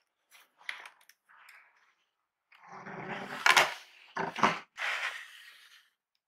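Cardboard laptop box being opened and handled: a few short rustles and taps, then about three seconds of cardboard scraping and rubbing with several sharp knocks in the middle.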